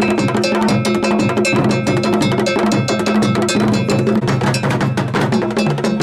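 Obonu drum ensemble playing: a metal bell strikes a fast, steady pattern over deep drums.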